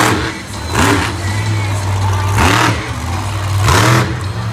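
Monster truck engine revving hard in four quick bursts, each rising in pitch, over a steady low running note.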